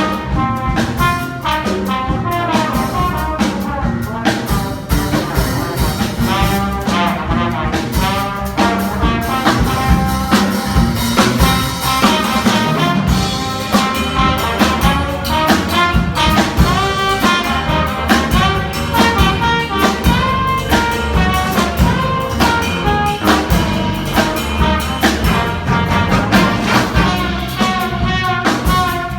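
Jazz music led by brass horns, playing over a steady beat.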